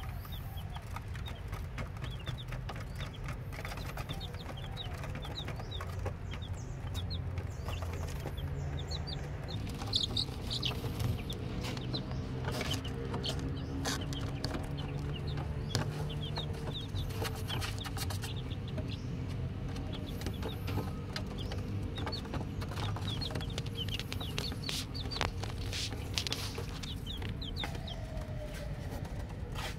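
Many newly hatched chicks peeping, a constant overlapping chorus of short high cheeps, over a steady low hum.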